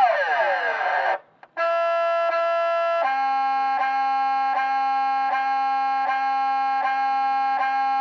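A customised 1975 Chevrolet's novelty sound-effects horn playing its electronic noises. It opens with a falling sweep lasting about a second, then after a short gap a steady tone. About three seconds in, the tone drops to a slightly lower pitch and pulses, roughly one and a half beats a second.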